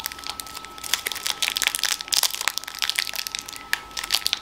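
Plastic snack wrapper crinkling and crackling as fingers pick and pull at its sealed seam, the packaging refusing to open.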